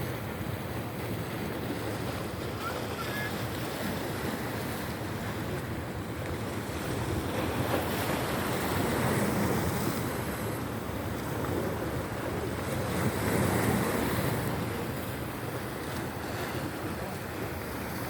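Red Sea waves washing on the shore, with wind blowing on the microphone. The surf swells louder twice, around the middle and again a few seconds later.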